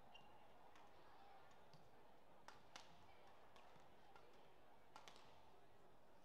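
Near-silent arena ambience broken by a few faint, sharp clicks of badminton rackets striking the shuttlecock during a rally.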